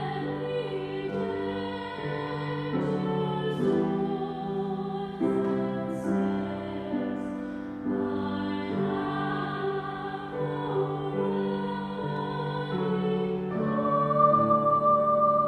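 Slow hymn sung with piano accompaniment, long held notes, rising to a high sustained note near the end.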